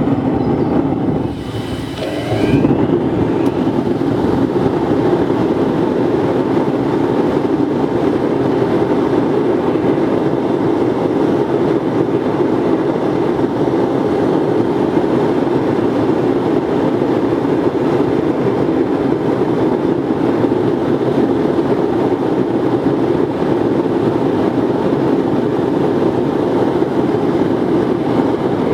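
Forced-air waste oil burner firing into a dirt furnace: a steady rushing noise of blower and flame. It dips briefly, then comes back up to full strength about two and a half seconds in.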